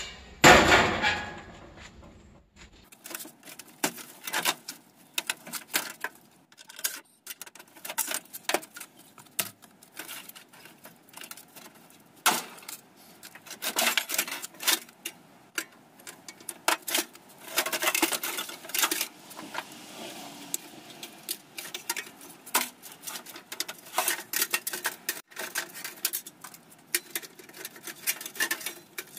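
Scrap sheet metal and air-conditioner parts clanking and rattling as they are handled and pulled apart. The loudest is a crash about half a second in, as a metal piece lands in the pickup bed, followed by many scattered clinks and clanks.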